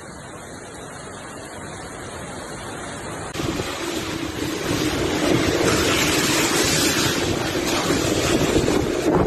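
Rushing floodwater with wind buffeting the microphone, growing louder, with an abrupt jump in level about three seconds in.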